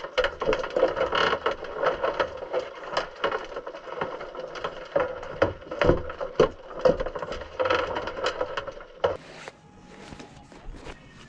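Irregular clicks and knocks over a steady hum, picked up by a GoPro underwater inside a wire-mesh crawfish trap. About nine seconds in it gives way to quieter open-air sound.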